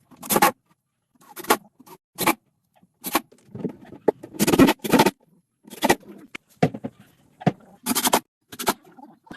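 Irregular short knocks, taps and brief scrapes of timber being handled and worked with hand tools, about a dozen separate hits spread unevenly.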